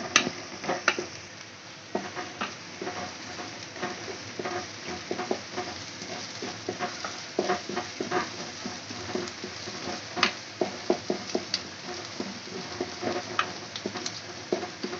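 Wooden spatula scraping and knocking against a metal kadai while stirring chopped onion, green chilli and curry leaves frying in oil, with a light sizzle underneath. The strokes come irregularly, a few louder knocks standing out.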